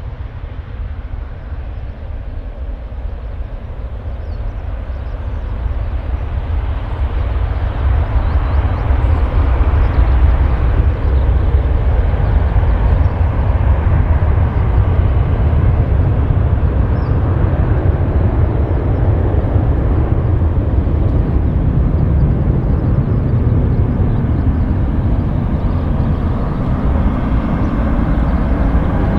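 A Boeing 737-800's two CFM56-7B jet engines at takeoff thrust as the airliner lifts off and climbs away. Their deep rumble grows louder over the first ten seconds or so, then holds steady.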